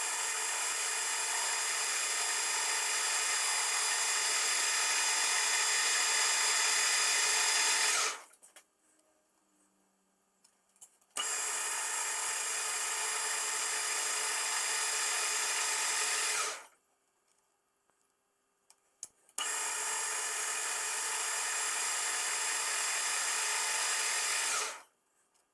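Soviet-made metal lathe running in three stretches of about five to ten seconds each, a steady dense whine that starts abruptly and stops quickly, while a 20-degree taper is turned on an air-hose adaptor. In the pauses between runs there are a few small clicks.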